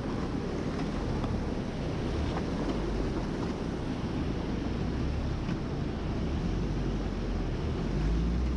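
Mahindra Scorpio S11 4WD's diesel engine running steadily as the SUV is slowly manoeuvred off-road, with wind rumbling on the microphone.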